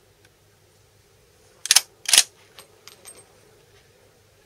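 Schmidt-Rubin straight-pull rifle bolt being worked: two sharp metallic clacks about half a second apart as the bolt is drawn back and pushed home, followed by a few lighter clicks.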